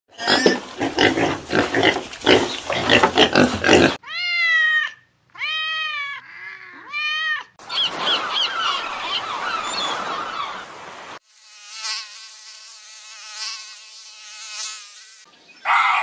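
A run of separate animal sounds cut one after another: piglets grunting and squealing while suckling, then four arching pitched calls, then a noise-like stretch with faint bird chirps, then a steady wavering pitched tone.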